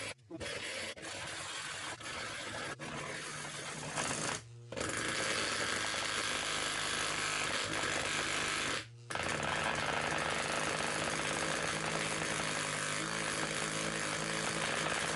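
Handheld electric massager buzzing with its head pressed against a home safe's combination dial, rattling the metal of the safe door; the sound cuts out briefly three times. The vibration shakes the lock's internal combination wheels until their numbers line up and the lock opens.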